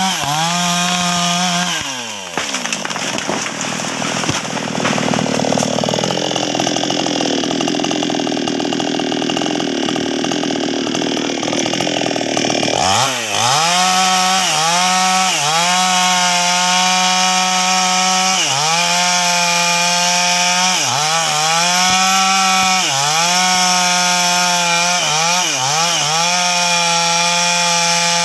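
Two-stroke chainsaw (NWESST 628) cutting sengon wood. The engine is at full throttle and falls away early on, and a long stretch of rough cutting noise follows. Then it runs high again, its pitch dipping briefly over and over as the chain bites into the wood under load.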